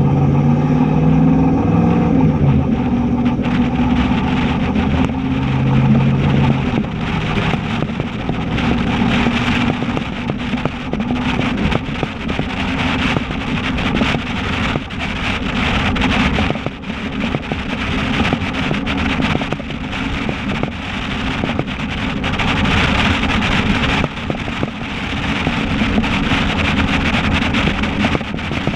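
The 2004 Dodge Ram 1500's 5.7-litre Hemi V8 running down the road through a straight-piped true dual exhaust with Dynomax Race Bullet mufflers and no catalytic converters, a steady deep exhaust note. After about seven seconds, wind over the microphone and tyre roar from 35-inch Cooper Discoverer STT tyres grow and partly cover it.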